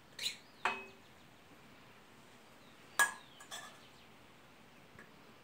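A metal spoon clinking against a small enamel bowl: a few short, sharp clinks with brief ringing, two close together near the start, the loudest about three seconds in, and a faint one near the end.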